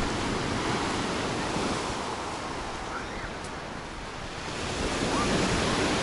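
Rough storm surf washing onto the shore, a dense steady wash that eases a little in the middle and swells louder again near the end, with wind buffeting the microphone.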